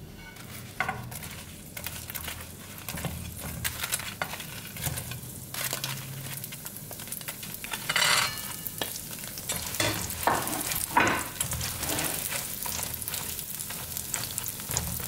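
Hot, oil-soaked fried awama dough balls sizzling as they are dropped into honey in a steel pan and stirred, with the spoon clicking and scraping against the pan. The sizzle surges louder a little past the middle and again about two-thirds through.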